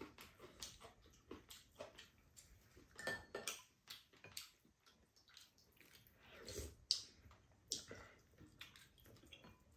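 Quiet eating sounds at a table: scattered light taps and clicks of chopsticks and spoons against ceramic bowls and a pot, with soft sipping of broth.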